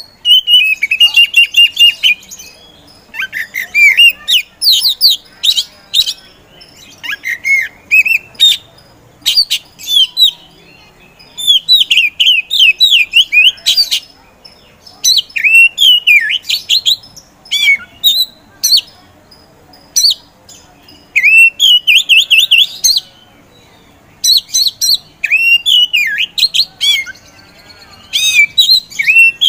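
Black-bellied Oriental magpie-robin (kacer poci) singing hard, in quick phrases of chirps and sliding whistled notes with short pauses between them.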